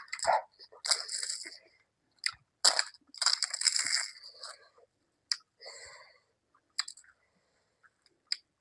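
A person chewing and crunching food close to the microphone: two longer crunchy spells, about a second in and around three to four seconds in, with short sharp clicks and smacks between them.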